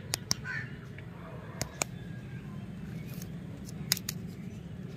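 Toffee lollipops and their wrappers handled in the fingers: a few sharp light clicks and crinkles, a couple near the start, two more mid-way and two near the end. A bird caws in the background over a low steady hum.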